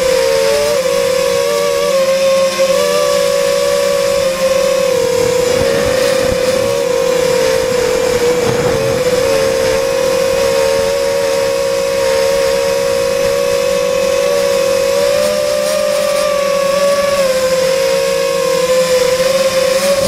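Sunnysky 2300 kV brushless motors on 3S spinning 5x3x3 three-blade props on an FPV quadcopter in flight: a loud, steady whine whose pitch wavers slightly with throttle. A rush of air noise swells about six to nine seconds in.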